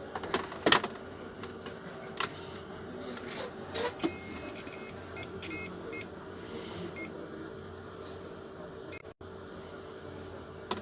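Electronic beeping in quick runs of short beeps, a little past four seconds and again near six seconds, among a few sharp clicks and knocks of handling, over a steady hum.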